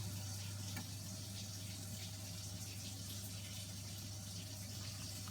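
Water running steadily from a tap, with a steady low hum underneath.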